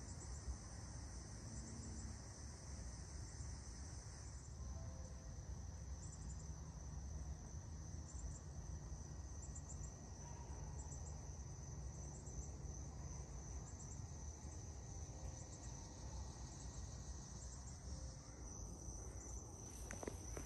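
Crickets chirping outdoors: a steady high trill with short groups of chirps repeating every second or two, faint over a low background rumble.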